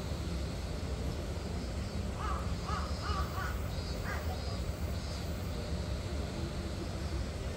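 A crow cawing, a quick run of four or five short caws about two seconds in and one more shortly after, over a steady low background rumble.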